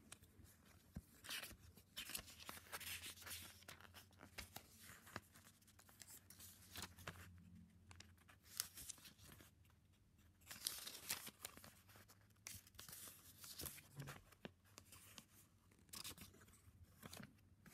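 Pages of a thin paper quick-start booklet being leafed through by hand: faint, irregular rustles and flicks of paper.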